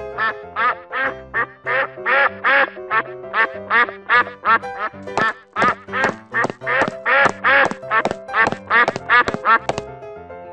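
Cartoon duck quacking over and over in a quick, even rhythm, about two or three quacks a second, over bouncy children's background music.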